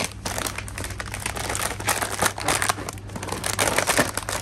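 Dense, irregular crinkling and crackling, over a steady low hum.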